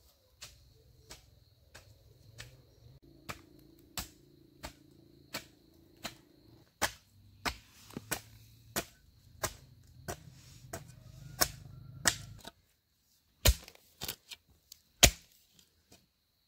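A hoe chopping into forest soil, one sharp strike about every two-thirds of a second, with a few louder blows near the end.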